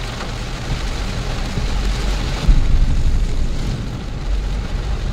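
A car driving through heavy monsoon rain on a flooded road, heard from inside the cabin: a steady low rumble of engine and tyres under a rushing wash of rain and spray. About two and a half seconds in, a sudden loud splash of water hits the car.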